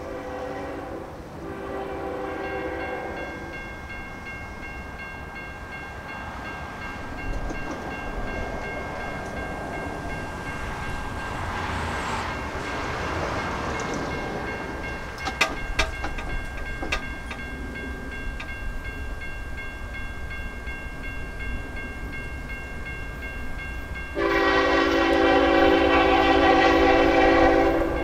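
CN freight locomotive's air horn sounding short blasts in the first few seconds, then one long, loud blast near the end. In between, the train rumbles as it approaches, with a few sharp clicks and a steady high ringing tone behind it.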